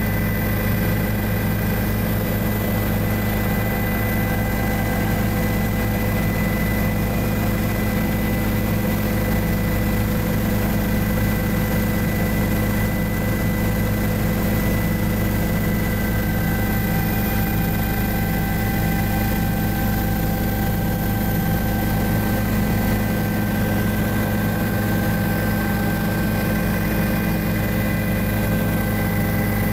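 Helicopter in steady flight, heard from inside the cabin: an even drone of rotor and engine with a few constant high tones over it.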